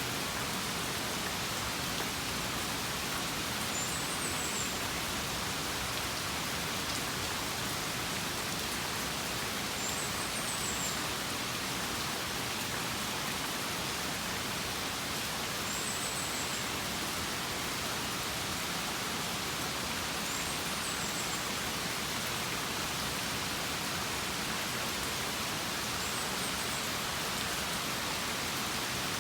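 Steady rain falling, an even hiss that holds without let-up. A faint high chirp recurs about every five or six seconds.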